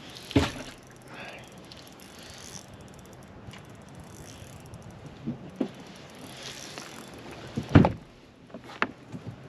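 Spinning reel (Shimano Sahara 2500) being worked while a fish is played on the rod, its mechanism clicking and whirring faintly. Two loud knocks stand out, about half a second in and near the end, with a few smaller clicks between.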